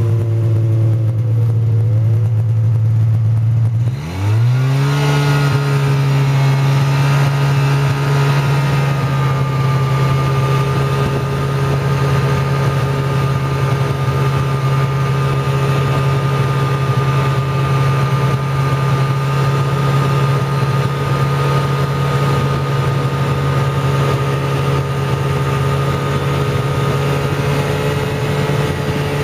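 Snowmobile engine running along a trail. About four seconds in there is a brief dip, then the pitch rises quickly as it speeds up, and it settles into a steady, higher note.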